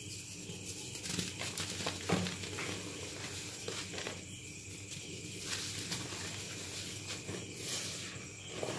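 Dyed gym chalk crumbling in the hands: a block cracking and breaking apart, then loose chalk powder being scooped and squeezed, a dense run of small crunches and gritty crackles with one louder crunch about two seconds in. The chalk is not completely dried, according to the uploader.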